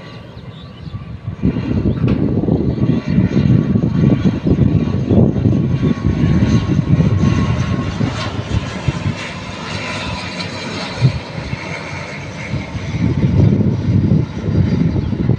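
Airliner passing low on its landing approach: engine noise swells about a second and a half in and stays loud, with a faint steady whine above the rumble, easing a little in the second half.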